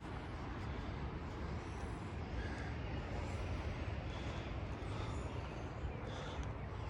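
Steady outdoor background noise, a low rumble with a hiss above it, with a few faint short high chirps scattered through it.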